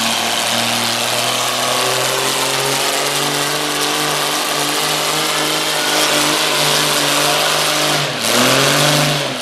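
Farmall 460 tractor's six-cylinder engine pulling hard under load against a weighted sled, its pitch creeping up steadily. About eight seconds in the pitch dips, surges briefly, then drops off near the end as the pull ends.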